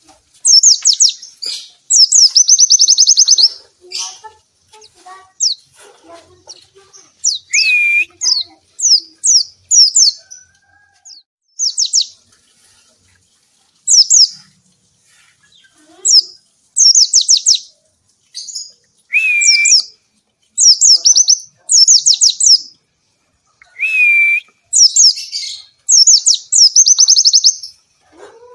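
White-eye (pleci) in full, active song: loud bursts of rapid, high-pitched chattering notes, each run falling quickly, repeated every second or two with short pauses. A few lower whistled notes are mixed in.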